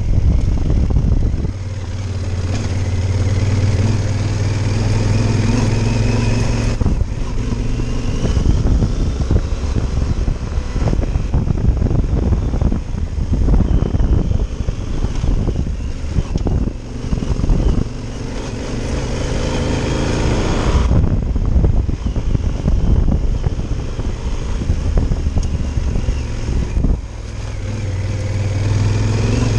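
Yamaha Super Ténéré's parallel-twin engine running while the motorcycle is ridden on a dirt road. The engine note holds steady for stretches and rises and falls with the throttle in between, over rough road and wind noise.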